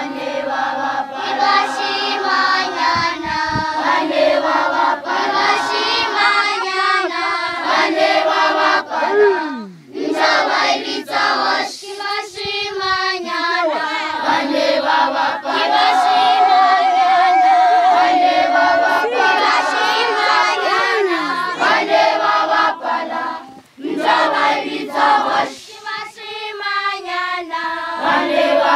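A large group of schoolchildren singing together unaccompanied, phrase after phrase with brief pauses between them. About halfway through, a long wavering high note is held over the singing.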